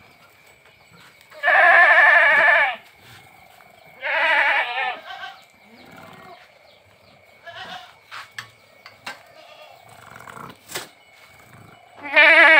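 Goats bleating, a Boer buck and a Sirohi doe at mating: three loud, wavering bleats, about one and a half seconds in, at four seconds and near the end, with softer calls between them and a single sharp click.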